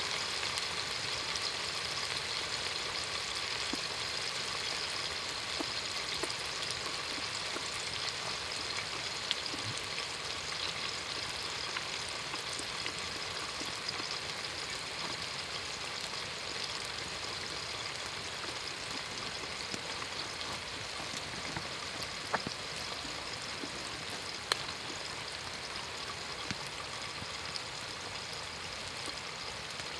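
Food sizzling in hot oil in a pan, a steady hiss with a few sharp pops.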